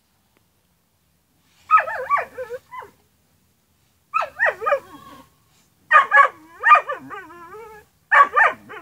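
A dog whining and yelping in four short bouts of high, wavering cries while wrestling with another dog, the third bout trailing off into a drawn-out wavering whine.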